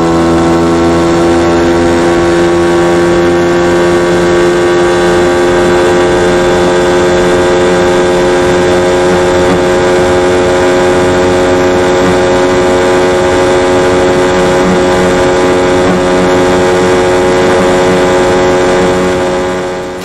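Sport motorcycle engine pulling hard at high revs, its pitch creeping slowly upward in a long top-speed run, fading out near the end.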